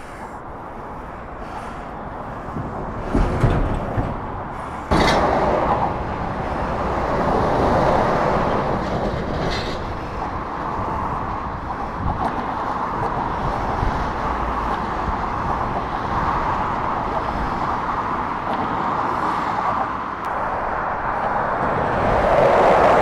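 Continuous traffic noise of fast cars and lorries on a dual carriageway, mostly tyre noise, swelling and easing as vehicles pass. It steps up suddenly about five seconds in and swells again near the end.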